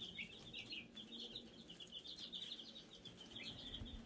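A brooder full of Black Australorp chicks peeping: an unbroken chorus of many short, high chirps overlapping one another.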